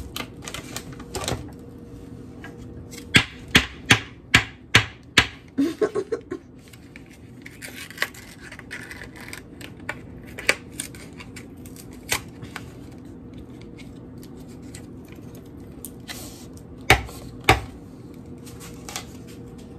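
Kitchen knife knocking on a wooden cutting board as jalapeños are cut: a quick run of about seven sharp taps a few seconds in, then scattered single knocks, two close together near the end. A cardboard box of cream cheese rustles as it is opened in the middle.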